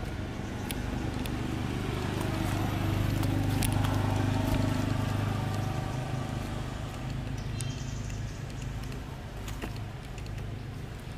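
A low motor-engine hum that swells over a few seconds and then fades back, with scattered small clicks over it.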